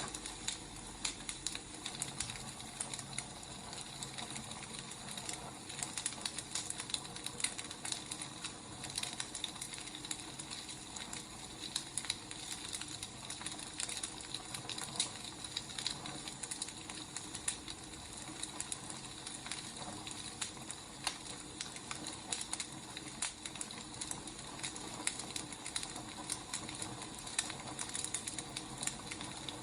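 Wood fire burning: a steady hiss with frequent irregular crackles and pops.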